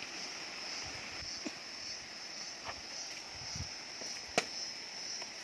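Steady chorus of insects with a pulsing high buzz. About four seconds in a machete blade strikes wood once with a sharp crack, after a couple of fainter knocks.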